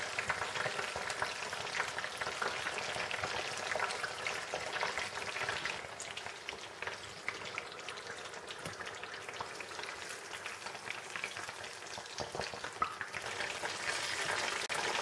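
Breaded mozzarella rolls deep-frying in hot oil in a stainless-steel saucepan: a steady crackling sizzle made of many tiny pops.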